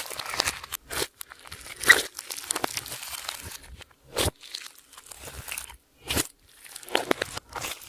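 Hands working clear slime mixed with makeup and glitter, giving irregular crackling, crunching and popping bursts broken by short pauses.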